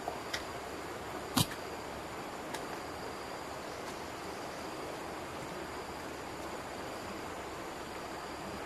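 Outdoor ambience: a steady hiss with a faint high insect drone, broken by a few sharp knocks, the loudest about a second and a half in.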